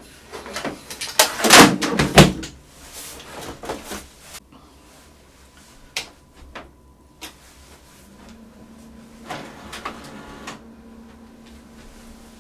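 Clatter and knocks as a cable reel and power lead are handled and set down, loudest about two seconds in, then a couple of sharp clicks as the power button is pressed. From about eight seconds the Brother MFC-L3750CDW colour laser printer starts up with a steady motor hum.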